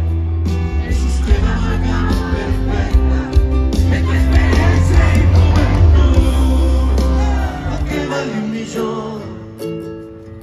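Live band playing loudly at a concert, with heavy bass and drums; about eight seconds in the bass drops away and the music thins out and fades.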